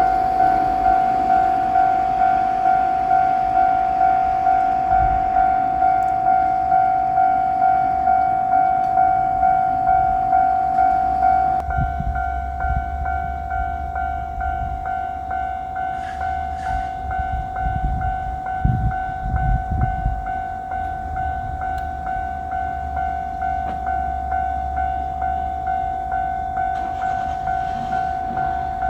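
Japanese level-crossing warning bell ringing steadily, a single pitched tone struck a little under twice a second. From about twelve seconds in, a low rumble joins it as a 1000-type diesel railcar passes over the crossing, swelling most around eighteen to twenty seconds in.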